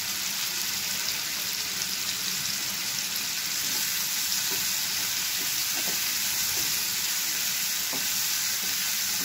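Vegetables (brinjal, tomato and drumstick pods) sizzling steadily in hot oil in a non-stick wok, stirred with a wooden spatula that scrapes the pan now and then in the second half.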